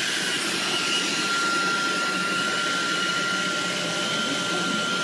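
Steady noise of a running motor-driven appliance, with a thin high whine over it.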